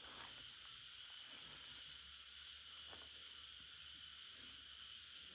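Near silence, with a faint steady high drone of night insects and a single faint tick about three seconds in.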